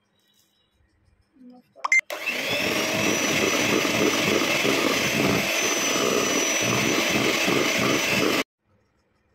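Electric hand mixer starting about two seconds in and running steadily with a thin high whine as its beaters whip cake batter in a steel bowl, then cutting off abruptly near the end.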